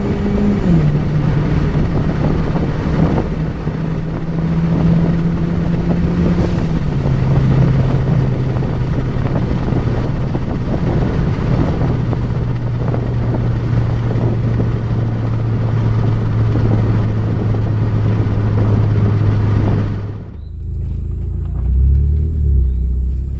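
Hyundai Genesis Coupe's turbocharged four-cylinder engine, heard from inside the moving car with a window down over heavy wind and road noise; the engine note drops lower in a few steps and then holds steady. Near the end the wind noise cuts off suddenly, leaving a lower, wavering rumble.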